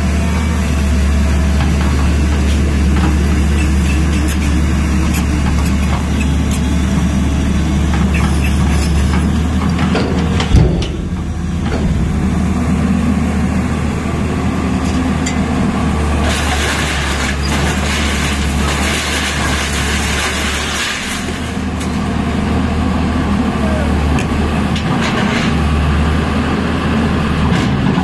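Tata Hitachi EX215 hydraulic excavator's diesel engine running steadily under work. There is one sharp, loud knock about ten seconds in, and a stretch of loud hissing partway through.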